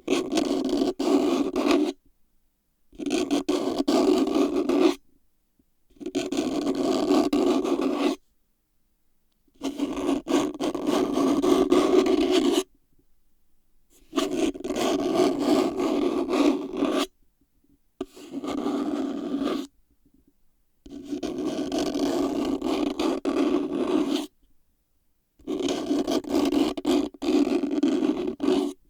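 Plastic box being scraped and scratched in eight separate rough strokes of about two to three seconds each, with short pauses between them.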